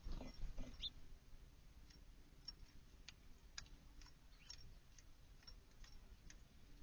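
Faint, irregular short sharp ticks from small birds at a backyard feeder, with a brief chirp just under a second in.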